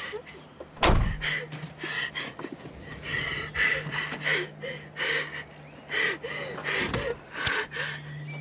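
A car door slams shut about a second in, then a woman breathes heavily and unsteadily inside the car, over a low steady hum, with another knock near the end.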